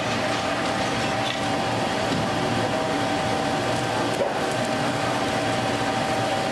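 Steady mechanical roar of a foundry cupola furnace in blast, its air blower running with a constant thin whine.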